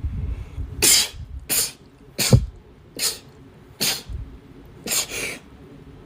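A woman sneezing six times in quick succession from an allergy, each sneeze a short sharp burst about two-thirds of a second apart, the last one longer and drawn out.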